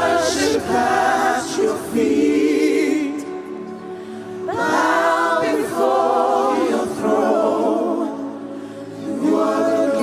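Group of voices singing a gospel worship song in three long, wavering phrases, each swelling and then easing off.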